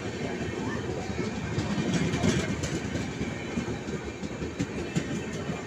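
Moving passenger train heard from inside a coach: a continuous rumble of wheels on the rails with irregular clicks and rattles, loudest about two seconds in.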